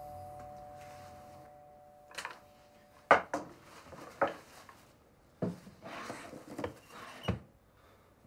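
Two-tone ding-dong doorbell chime ringing out and fading over the first three seconds. Then comes a string of short, light knocks and clatters, about eight in all, as of objects being handled and set down.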